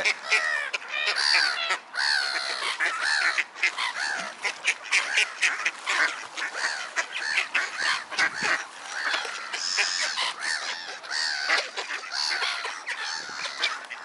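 A large flock of pond waterfowl calling over one another, a dense, constant noise of many short overlapping squawks and honks.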